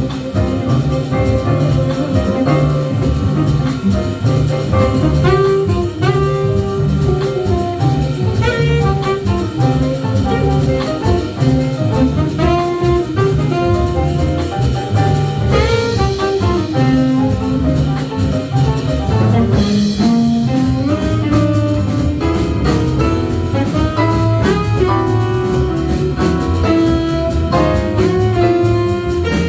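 Live jazz band playing: a saxophone carries a gliding melody over bass and a drum kit with cymbals.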